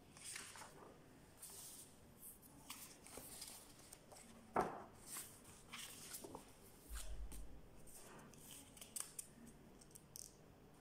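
Sheets of paper in a thick stack of documents being leafed through and turned, a run of short dry rustles and brushes of paper, with one louder knock about halfway through.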